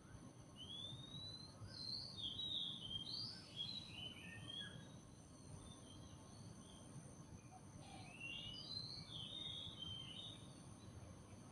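Songbirds singing quick chirping, warbled phrases in two spells: one starting about half a second in, another starting about eight seconds in. A faint steady background hiss runs beneath them.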